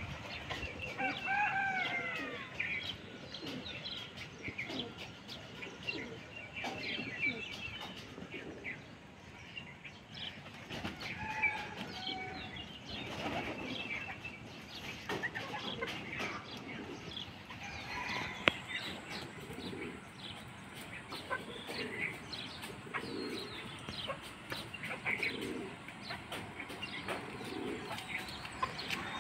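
Chickens clucking and calling now and then, with many small scattered clicks.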